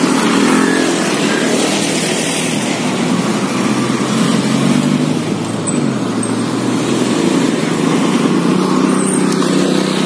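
Small motor scooters and cars passing close by, their engines running and rising and falling in pitch as they go.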